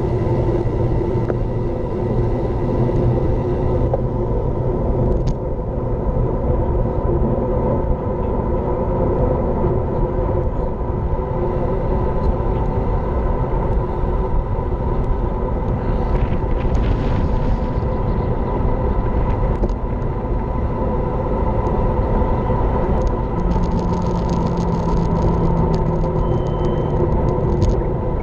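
Wind rushing over an action camera's microphone on a fast road-bike descent: a loud, steady rumble with a constant hum running underneath.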